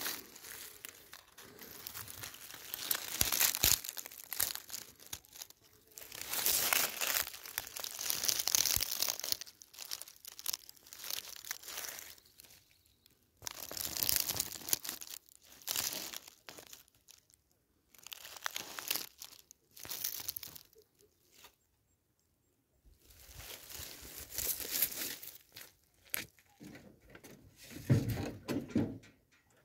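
Dry leaves, twigs and brush rustling and crackling in irregular bursts of a second or two, with short quiet gaps between them. A brief low rumble comes near the end.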